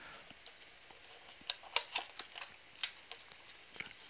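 Cardboard trading-card box being opened by hand: a quick run of sharp crackles and clicks as the flaps are pulled apart, loudest about two seconds in.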